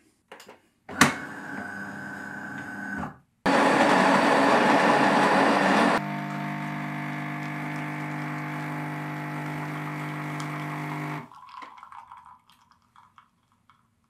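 DeLonghi Magnifica ESAM 4200 bean-to-cup machine making an espresso: a click and a short motor whir, then the built-in burr grinder grinding beans loudly for a couple of seconds, then the pump buzzing steadily for about five seconds as the shot pours, stopping a few seconds before the end.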